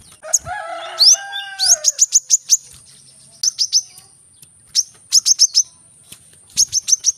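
Brown-throated sunbird (kolibri kelapa) singing: rapid clusters of three to five sharp, very high chirps, repeated every second or so. A lower warbling phrase comes in the first two seconds, and a thin steady high tone runs underneath.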